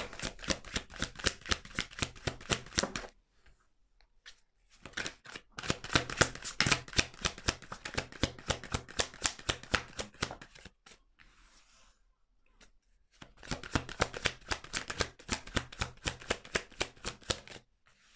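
A deck of tarot cards shuffled overhand in the hands, the cards flicking and slapping against each other in rapid runs of small clicks. Three spells of shuffling, with short pauses between them.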